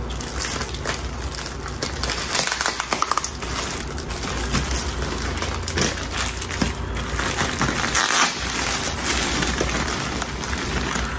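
Plastic packaging bags crinkling and rustling as they are handled and opened by hand, a dense continuous run of small crackles.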